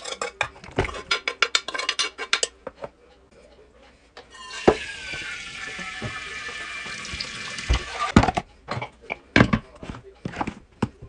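Kitchen dishes and cutlery clattering and clinking in quick succession, then a water tap running into the sink for about four seconds, followed by more scattered knocks and clinks of pots and dishes.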